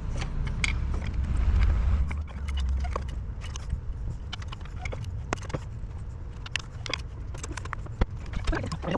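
Hand tools working on the clutch fan nuts of a Toyota Land Cruiser 80 Series: irregular metallic clicks and taps from a ratchet and a large screwdriver, with one sharper knock about eight seconds in, over a low rumble that eases after the first couple of seconds.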